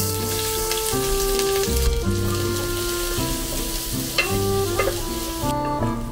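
Sliced onions sizzling in hot mustard oil in a nonstick pot while a spatula stirs them, with a few scrapes of the spatula; the sizzle cuts off sharply near the end. Background music plays underneath.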